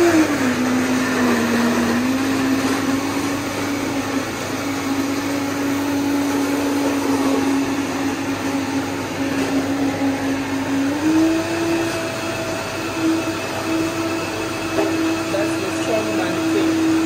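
Commercial countertop blender running as it blends a drink, a steady motor whine that dips in pitch just after it starts, holds level, then steps up a little about eleven seconds in.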